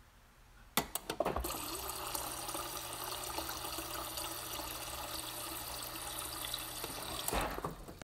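Refrigerator door water dispenser: a few clicks as it is switched on, then water running from the spout into a glass for about six seconds, stopping near the end.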